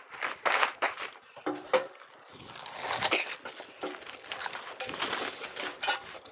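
Plastic and paper packaging crinkling and rustling in irregular bursts as it is handled and pulled away.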